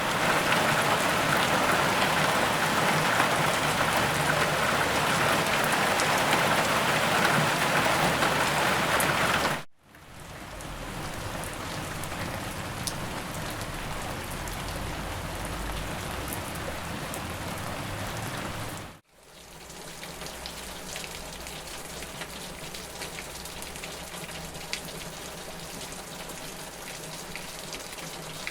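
Heavy rain falling steadily, a dense hiss with scattered drop ticks. It plays as three separate recordings in turn: a loud downpour, then after a brief drop-out about ten seconds in a quieter rain, and after another drop-out about nineteen seconds in a still quieter one.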